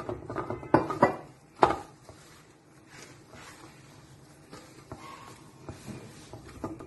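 Hands mixing crumbly maida dough in a steel paraat: a few sharp knocks against the steel in the first two seconds, then softer rubbing and crumbling of the dough.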